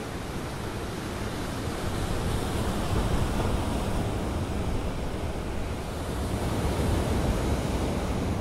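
Wind blowing across the microphone: a steady rushing noise with an unsteady low rumble, growing a little stronger a couple of seconds in.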